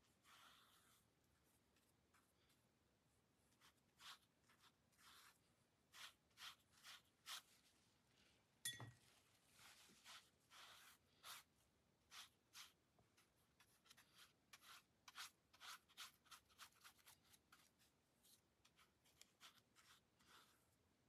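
Faint, soft strokes of a watercolour brush across wet paper, many short swishes as the paint is worked in, with a single light knock a little before the middle.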